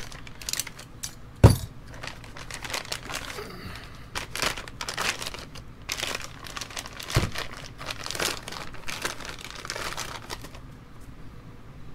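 Plastic packaging bag crinkling and tearing as gloved hands unwrap a hydraulic solenoid valve, with a sharp knock about a second and a half in and another around seven seconds. The crinkling stops near the end.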